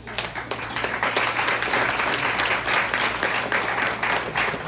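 Audience applauding: a roomful of people clapping, starting suddenly and going on steadily.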